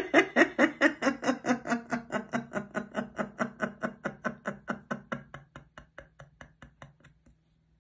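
A woman laughing in one long run of quick 'ha-ha-ha' pulses, about five a second, that grows fainter and dies away about seven seconds in. It is the laugh let out after a held breath in a laughter yoga exercise.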